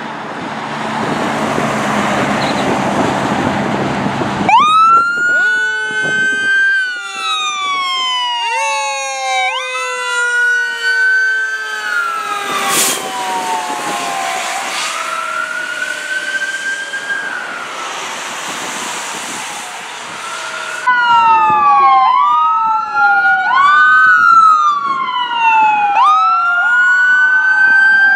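Fire engine's engine running for the first few seconds, then its sirens start to wail: repeated sweeps that climb quickly and fall away slowly, two or more sirens overlapping. About two-thirds of the way through, a second fire truck's sirens take over, louder and cycling faster.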